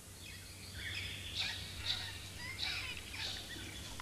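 Birds calling: a run of short, repeated chirps and sweeping whistles, over a low steady hum.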